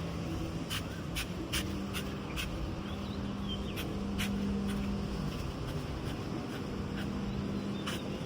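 Ambient background with a steady low hum and scattered sharp clicks and light taps at irregular intervals, plus a few faint short chirps.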